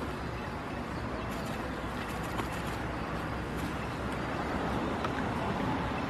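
Steady low rumble and hiss of outdoor background noise, with a few faint clicks.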